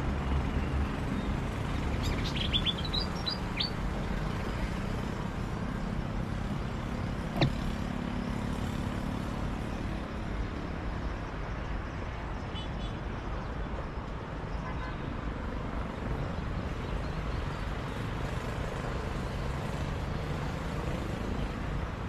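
Wild bird chirping near its hanging nest: a quick run of about six high chirps about two seconds in, then fainter chirps later, over a steady low rumble. A single sharp click sounds about seven seconds in.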